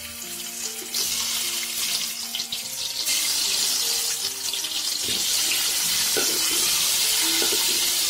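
Hot oil sizzling as peeled hard-boiled eggs fry in a metal pan with turmeric, the sizzle stepping up louder about a second in and again about three seconds in as more eggs go in. A few light knocks from the slotted spoon against the pan come in the second half.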